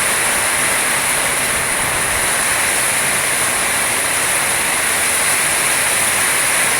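Heavy storm rain pouring down in strong wind, a dense, steady hiss that holds even throughout.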